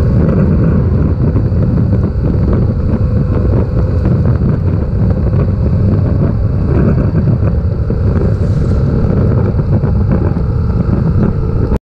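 Yamaha 689 cc parallel-twin motorcycle engine running steadily under way, with wind noise on the camera microphone; the sound cuts off abruptly near the end.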